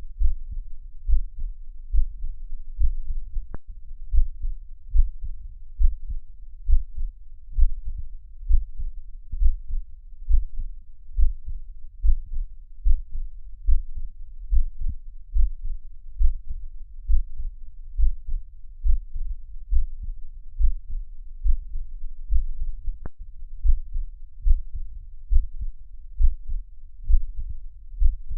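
Recorded heartbeat: low thuds repeating in a steady rhythm.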